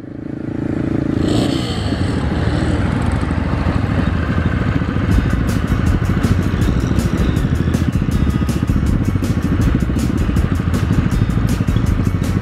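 Motorcycle engines running at low speed as a group of bikes rolls off together, a steady low rumble from the camera bike and the machines around it. A regular high ticking joins about five seconds in.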